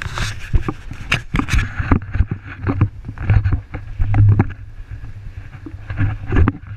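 Wind buffeting and a steady low rumble on the microphone of a GoPro carried on a moving bicycle, with irregular knocks and rattles as the camera is jostled.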